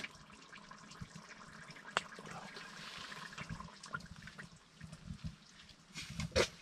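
Faint wet, squelchy handling of hot cooked ham being pulled apart by hand on a plastic chopping board, with scattered light clicks, a sharper knock about two seconds in and a few louder knocks near the end.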